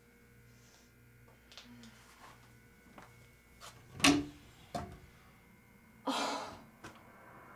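A few light knocks and clicks of things being handled on shelves, with one louder knock about four seconds in. A short breathy sigh comes about six seconds in.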